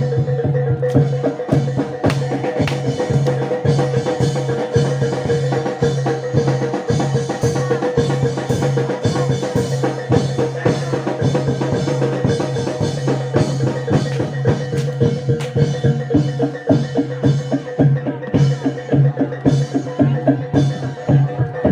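Reog / Jaran Dor ensemble music: fast, dense drumming and struck pitched percussion over a steady held tone.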